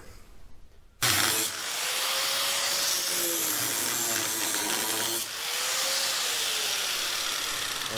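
Angle grinder with a cut-off wheel cutting through the stacked sheet-steel layers of a pickup cab's windshield pillar. It starts abruptly about a second in and runs steadily, its pitch sagging and recovering under load, with a brief let-off around five seconds in before cutting on.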